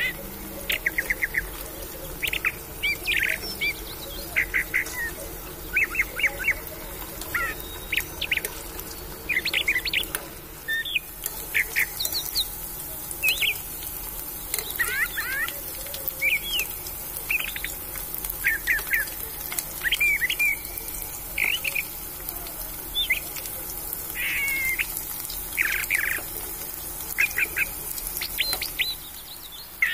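Small birds chirping, short quick calls and trills repeating every second or so throughout, over a faint steady hum.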